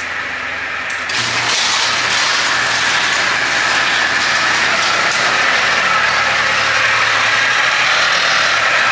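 Propane-fuelled Nissan forklift's engine running as it drives, with a thin steady whine above the engine hum. It gets louder about a second in.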